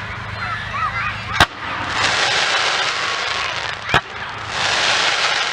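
Fireworks display: two sharp bangs about two and a half seconds apart, over a steady crackling hiss.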